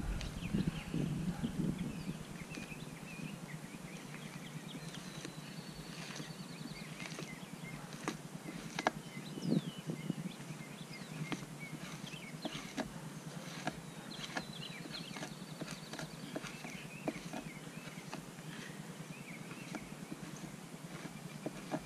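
The spine of a knife scraping fat and meat off a raw deer hide laid over a pine-log fleshing post, in irregular short strokes and knocks.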